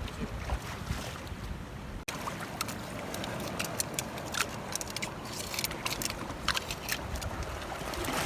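Rocky-shore ambience: a low rumble of wind on the microphone, broken by a sudden dropout about two seconds in. It is followed by a steady hiss with many sharp clicks and taps of stones and shells knocking together.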